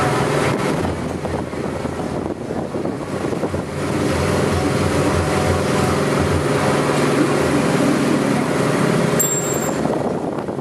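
A motor or engine runs steadily with a constant hum. About nine seconds in there is a short, high-pitched tone.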